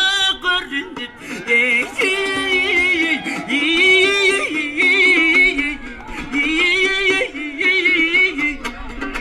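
Folk song sung in phrases, with a strongly wavering, ornamented voice, accompanied by plucked long-necked lutes.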